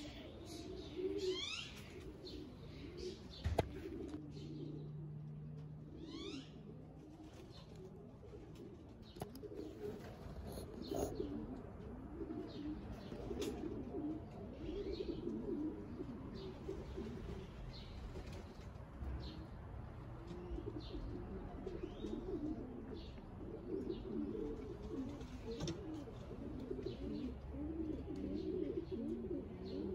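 Loft pigeons cooing continuously, with quick high chirps of other birds over them. A single sharp click comes a few seconds in.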